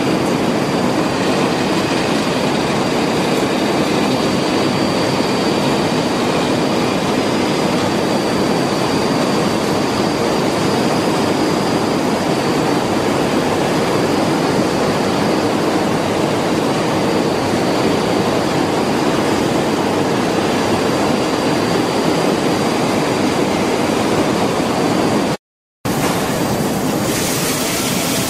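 Steady noise of a paint shop's ventilation fans and machinery, with a faint high whine. It drops out for about half a second near the end, then comes back with more hiss.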